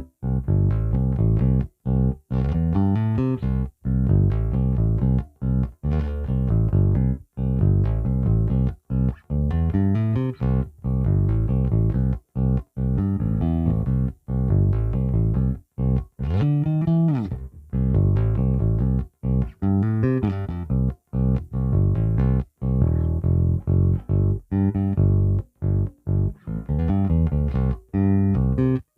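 Fender Player Series Precision Bass, with its split-coil pickup, played through a Marshall MB60 bass amp: a run of plucked notes and riffs, each phrase cut short by brief silent gaps, with one note bent up and back down about halfway through.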